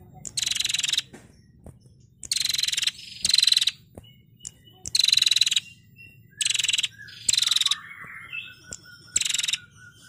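Female prenjak (a small warbler) giving its rattling 'ngetir' trill again and again: about seven short, high bursts, each under a second, with fainter, lower chirps in the last couple of seconds.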